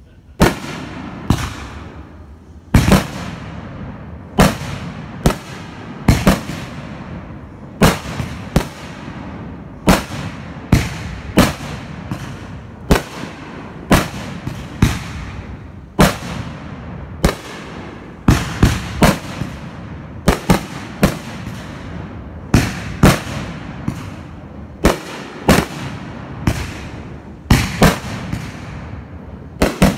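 Aerial fireworks going off in a rapid, uneven string of sharp bangs, about one or two a second, each trailing off over about half a second.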